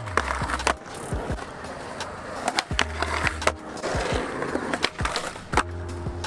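Skateboard rolling on concrete, with sharp clacks of the board and trucks striking a concrete ledge and landing, over background music with a beat and deep bass notes.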